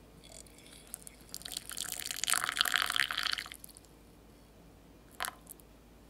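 Hot water being poured into a small glass bowl: a splashing trickle that builds over about three seconds and then stops. A single light knock follows about five seconds in.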